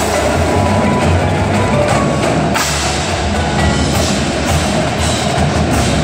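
Indoor percussion ensemble performing: marching snare, tenor and bass drums playing together with a front ensemble of marimbas and vibraphones, dense and continuous.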